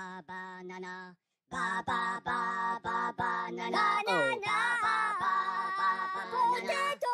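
Background music: a sung song over a steady beat, breaking off for a moment about a second in, with a voice sliding down in pitch about four seconds in.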